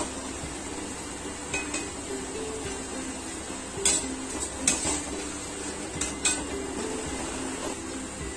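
Noodles sizzling as they deep-fry in hot oil in a stainless steel kadai, stirred with a perforated steel skimmer that clinks against the pan a few times, with the sharpest clinks around four, five and six seconds in.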